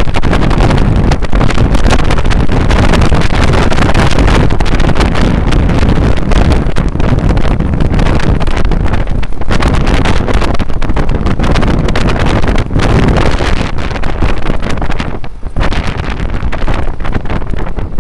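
Heavy wind buffeting the microphone from the open side of a moving vehicle, over its engine and road noise. It eases for a moment about fifteen seconds in.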